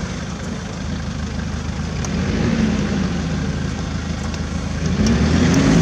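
Off-road 4x4's engine running under load. Its pitch rises and falls about two seconds in, then revs up louder near the end.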